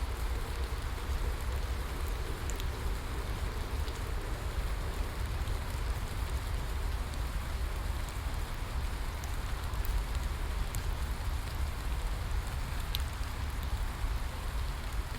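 Steady rain falling: an even hiss with scattered sharp drop ticks over a deep, steady rumble.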